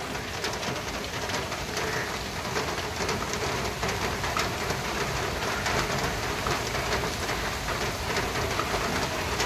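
Heavy rain falling steadily on a street, a dense even hiss with many small drop ticks.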